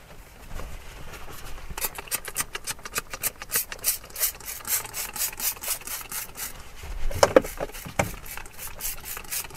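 Cloth wiping a car's plastic dashboard in quick, even rubbing strokes, about three a second. A few sharper, louder strokes come about seven to eight seconds in.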